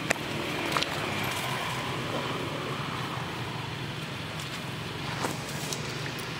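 Steady low outdoor rumble with a few sharp clicks, one right at the start, one just under a second in and one about five seconds in.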